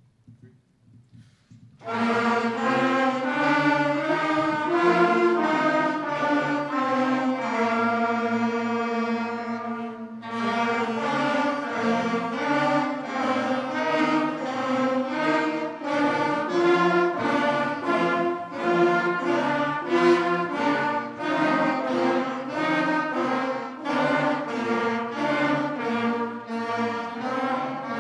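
A student concert band of woodwinds and brass playing a scale-pattern warm-up. The band comes in about two seconds in, moves step by step through sustained notes, holds a long chord, breaks off briefly near the middle, then goes on with more note changes.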